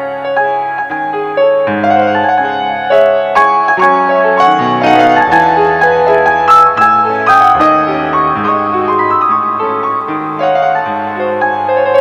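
Piano music: a slow melody over held chords.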